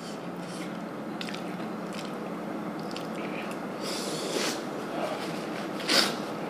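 Paper tissue rustling as it is grabbed and pressed against the face. A short sharp rustle or sniff comes near the end. Small clicks and a faint steady hum run underneath.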